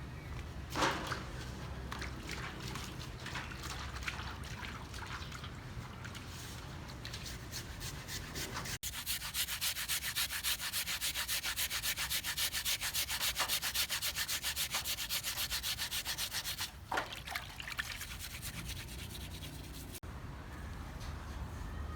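Scraping of a shark being cleaned for cooking: rapid, even scraping strokes, several a second, for about eight seconds in the middle, with scattered knocks and shorter scrapes before and after.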